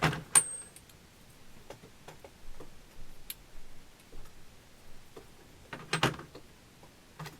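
Scattered clicks and knocks of sockets and a plastic tool case being handled. A sharp click near the start carries a brief high metallic ring, and a louder pair of knocks comes about six seconds in.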